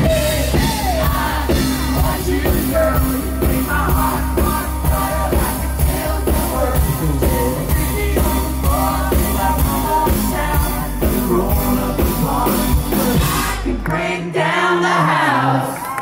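Live country-rock band music with singing over a steady drum beat and bass. About two seconds before the end the drums and bass drop out and the song rings out on its final notes.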